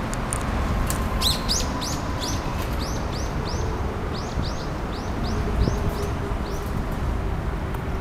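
A small songbird giving a long run of short, high chirps, two or three a second, which stop shortly before the end. Under them is a steady low rumble of traffic and wind.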